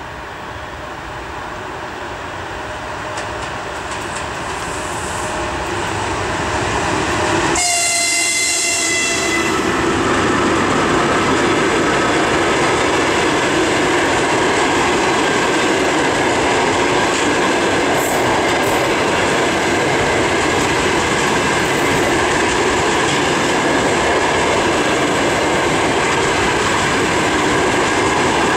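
An EP1M electric locomotive hauling a passenger train approaches, growing louder over the first several seconds, and sounds its horn for about two seconds as it passes. After that the passenger coaches roll past with a steady rush and clatter of wheels on the rails.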